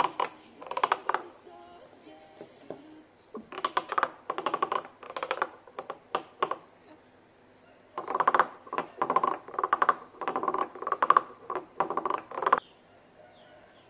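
Carved wooden frog guiro scraped with its stick along the ridged back, giving repeated rasping croaks. Each croak is a quick train of clicks, coming in bursts with short pauses between them.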